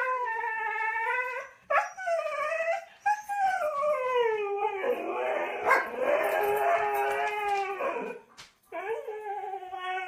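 Siberian husky howling in a run of drawn-out, wavering howls, about five in all with short breaks between them. The one from about five to eight seconds in is the longest and harsher than the rest.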